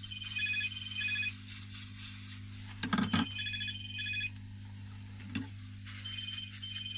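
A short electronic beeping tune, ringtone-like, repeating in three phrases over a steady low hum, with a cluster of small clicks about three seconds in and another click later.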